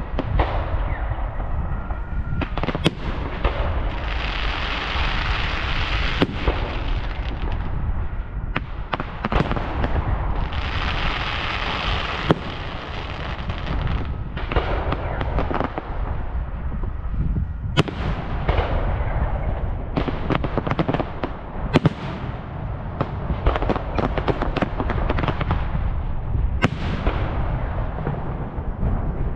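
Aerial fireworks display: a continuous barrage of shell bursts, with sharp bangs every second or two over a constant rumble. Two long spells of dense crackling come in the first half.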